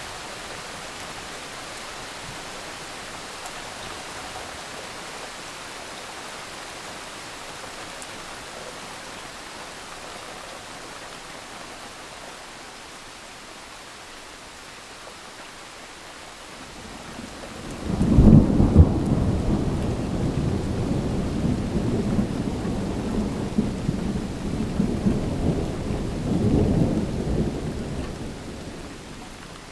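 Thunderstorm: steady rain hissing, then a long roll of thunder that breaks in about eighteen seconds in and rumbles on with several swells for around ten seconds before fading.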